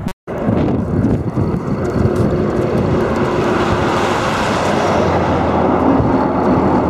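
Wind buffeting the microphone over highway traffic noise, with a large bus passing close by about four seconds in.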